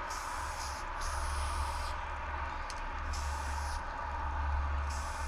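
Aerosol spray paint can hissing in a run of short bursts, each about a second long, with brief gaps between them as the nozzle is pressed and released. A steady low rumble runs underneath.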